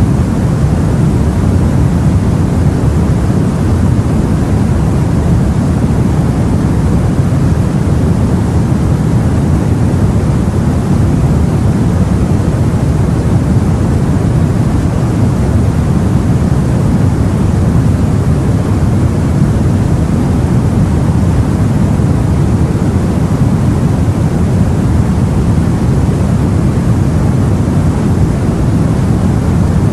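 Steady low rushing of sea water and wind heard from aboard a boat, an even, unchanging deep noise with no distinct wave breaks or other events.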